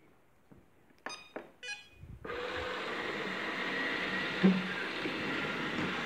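ILIFE A4 robot vacuum cleaner powering on: a short series of beeps about a second in, then its suction motor and brushes start up and run steadily as it drives off, with a light knock about halfway through.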